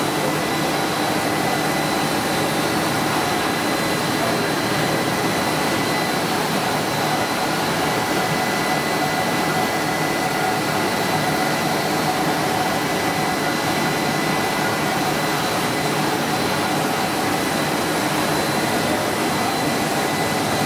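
Cast film extrusion line running: a steady whir of machinery with a thin, high, steady whine over it, unchanging throughout.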